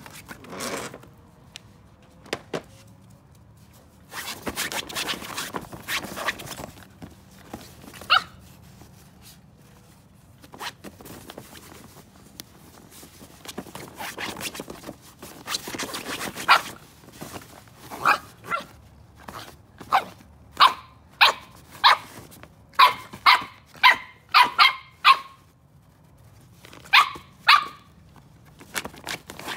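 Miniature Australian Cattle Dog puppies yapping: short, sharp, high-pitched barks that come in quick runs through the second half. Earlier there are stretches of scuffling noise as they tussle on a nylon folding chair.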